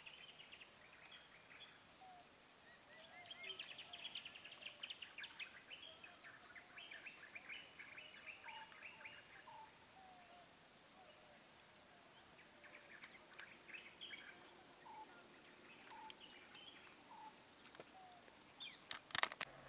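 Faint birdsong from the roadside forest: bursts of rapid chirps and short whistled notes over a thin steady high tone. A few sharp clicks just before the end are the loudest sounds.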